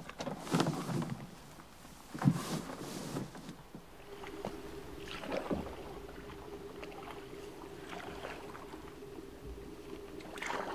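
A canoe being set down at the water's edge with rustling and a sharp knock about two seconds in, then the canoe paddled along a creek: paddle strokes dipping and swishing in the water, with a faint steady hum underneath.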